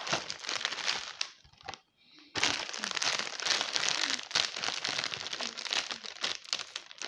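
Plastic bag of breaded chicken nuggets crinkling and rustling as it is pulled out of its cardboard box and handled, with a short pause about a second and a half in.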